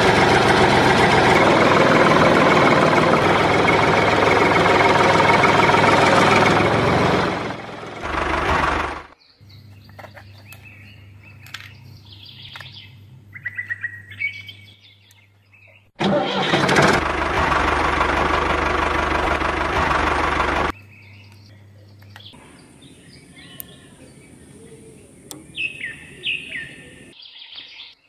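An engine running loudly for about nine seconds, then cutting out. It starts up again for about five seconds in the middle. In the quieter stretches, birds chirp in short calls, several of them quick falling chirps near the end.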